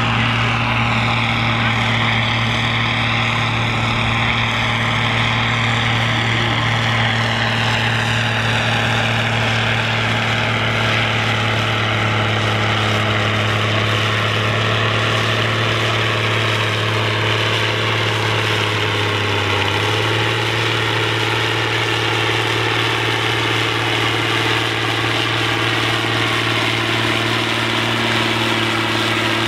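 Large farm tractor diesel engines running steadily at idle; one is a John Deere 3650's six-cylinder diesel, at the start of a tractor pull. A higher engine tone drops slowly in pitch over the first ten seconds, and the engine note shifts slightly about twenty seconds in.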